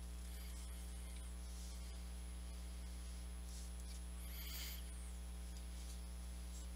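Steady low electrical mains hum with evenly spaced overtones and a faint thin high whine. A brief faint noise comes about four and a half seconds in.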